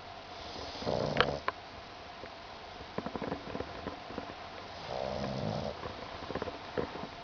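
Pug snoring softly in its sleep: two small snores about four seconds apart, with faint short clicks between them.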